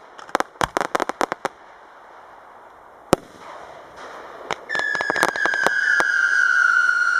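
Fireworks display: a quick string of sharp firecracker-like bangs, one louder bang about three seconds in, then from about four and a half seconds a sustained high whistle that falls slowly in pitch while more bangs go on around it.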